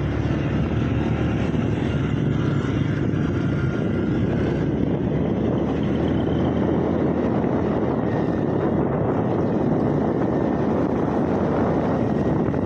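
Motorcycle riding along a road: its engine running under a steady rush of wind noise on the microphone.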